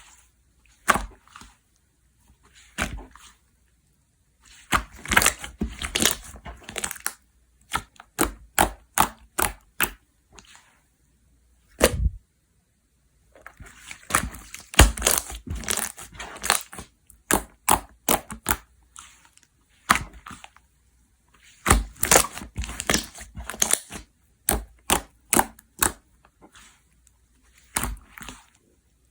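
Coffee slime being pressed, squeezed and poked by hand, giving sharp crackling pops and clicks in dense clusters with short pauses between them.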